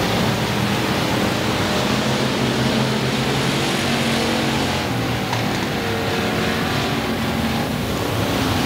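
Engines of Factory Stock dirt-track race cars running steadily as they circle the oval, their note drifting slightly up and down.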